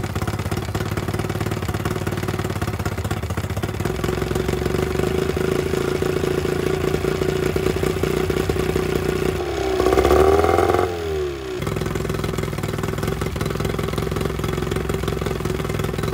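1983 Johnson 15 hp two-stroke outboard motor running steadily just after starting, on its first run after a carburetor rebuild and throttle repair, with its lower unit out of the water. About ten seconds in it is revved once briefly, the pitch rising and falling back to the steady running.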